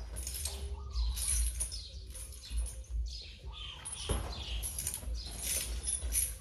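Footsteps scuffing on a bare dirt floor, about two a second, with a heavier thud about four seconds in as a woven basket of fruit is set down on the ground.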